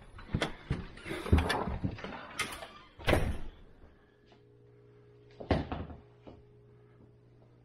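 A house door being opened: a run of latch clicks and knocks over the first three seconds or so, the loudest about three seconds in. After that a steady low room hum, with one more knock about halfway through.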